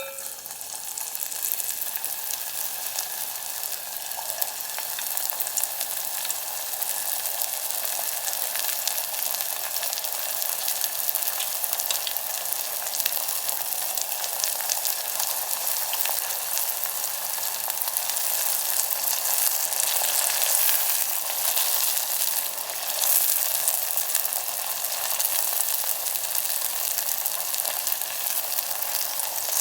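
Seaweed chips (gim-bugak) deep-frying in hot oil: a steady sizzle with fine crackling that starts abruptly.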